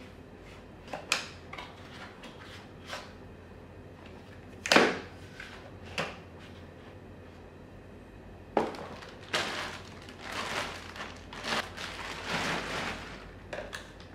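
Plastic and metal tricycle parts being handled and pushed together: a string of sharp clicks and knocks, the loudest about five seconds in. After that come several seconds of rustling and scraping as parts are moved and shifted.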